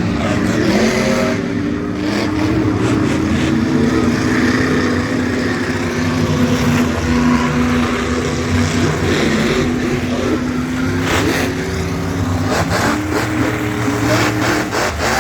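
Monster truck engine running loud and held at high revs, its pitch wavering slightly, with a few sharp cracks in the last few seconds.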